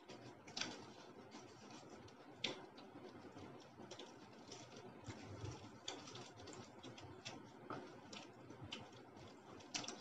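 Faint, irregular small clicks and scratches, with a few sharper ticks about half a second in, about two and a half seconds in, and near the end.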